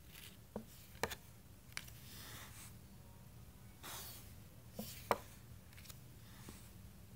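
Tarot cards being slid off one pile and laid onto another: soft rubbing swishes of card stock with a handful of light clicks and taps of card edges, the sharpest about a second in and just after five seconds.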